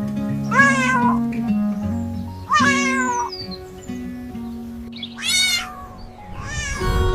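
Cat meowing four times, each a separate drawn-out call, over soft background music with held notes.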